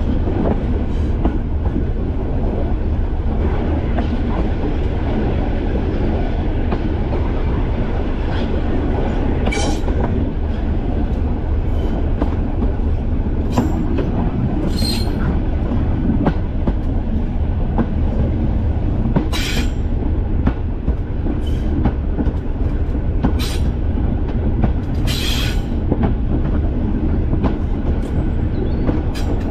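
Class 205 'Thumper' diesel-electric multiple unit on the move, its English Electric four-cylinder diesel engine and running gear giving a steady, loud low rumble. About half a dozen short, high-pitched squeaks from the wheels on the rails are scattered through it.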